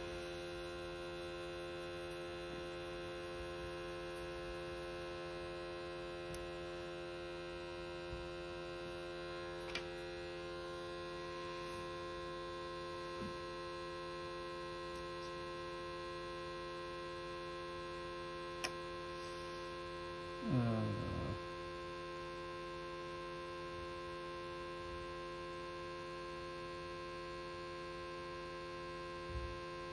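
Steady electrical mains hum made of several constant tones, with a few faint clicks scattered through and one brief voice-like sound about two-thirds of the way in.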